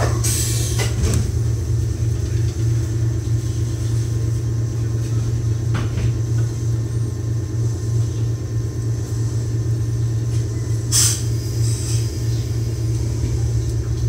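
Meitetsu 6000-series commuter train's sliding door closing with a thud and a hiss of air just at the start. After that comes the steady low hum of the car's onboard machinery as the train stands at the platform, with a brief burst of air hiss about eleven seconds in.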